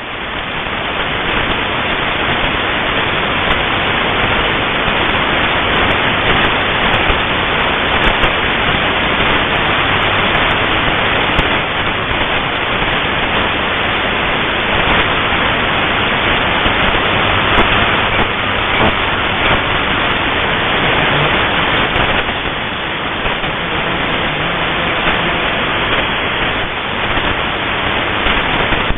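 Shortwave radio receiver putting out steady static hiss with no station coming through, its sound cut off above a fairly low pitch by the receiver's narrow audio filter.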